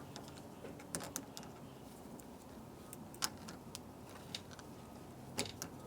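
Deadbolt lock parts being handled and fitted into the door: a few faint, scattered metal clicks and taps.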